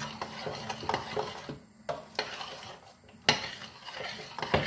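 A utensil stirring a thick cheesecake filling cooking in a stainless steel pot, scraping and knocking irregularly against the pot's sides and bottom, with one sharper knock about three seconds in.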